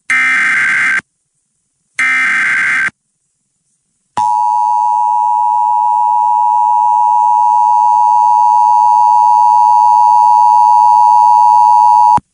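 Emergency Alert System alert opening. First come the last two of three one-second SAME header bursts, shrill warbling digital data tones. After a short pause comes the steady two-tone EAS attention signal (853 and 960 Hz), held for about eight seconds and announcing a tornado warning.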